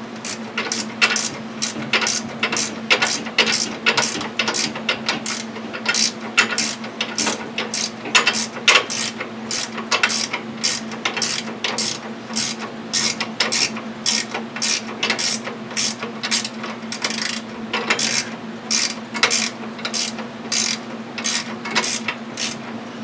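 Hand ratchet wrench clicking steadily, about three clicks a second, as it is swung back and forth to drive the bolts of a mower's PTO clutch. A steady low hum runs underneath.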